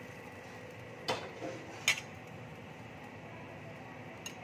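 Two sharp clacks about a second apart, the second louder, then a faint tick near the end: a wooden spatula and wok knocking as cooked food is scraped out of the wok onto a plate.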